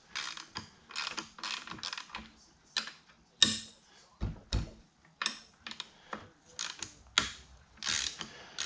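Ratchet wrench clicking in short, uneven strokes while the dirt bike's handlebar and control clamp bolts are worked loose.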